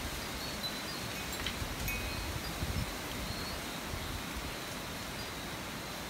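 Steady storm wind and rain hiss, with gusts buffeting the microphone now and then and a few faint, short high tinkling tones.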